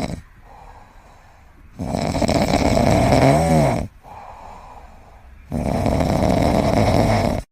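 A sleeping pet snoring: long, loud rasping snores about every three and a half seconds, with quieter breaths between them. The middle snore wavers up and down in pitch just before it ends.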